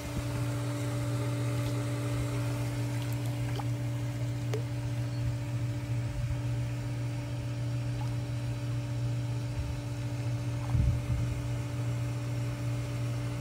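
Swimming-pool filter pump humming steadily, with a few faint ticks over it and a brief low bump near the end.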